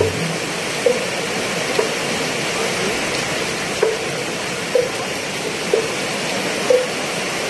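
Heavy rain pouring down as a steady hiss. Over it, a short pitched strike sounds regularly, about once a second.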